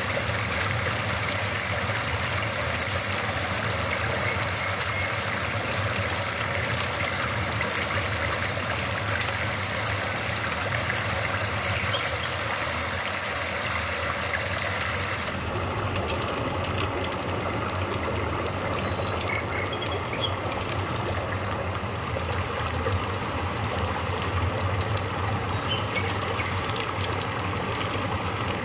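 Steady rushing, bubbling water noise, typical of a flowing stream. About halfway through the sound changes abruptly, and a few faint ticks follow.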